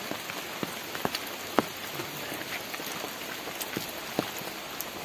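Steady rain falling on vegetation, an even hiss with scattered single large drops striking sharply close by; the loudest drop comes about one and a half seconds in.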